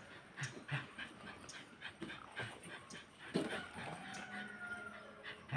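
A dog whimpering softly, among small clicks and shuffling sounds.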